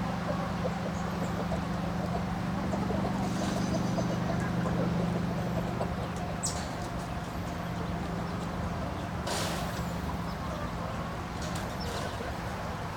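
A flock of chickens calling and clucking over a steady low machine hum, with a few brief high chirps.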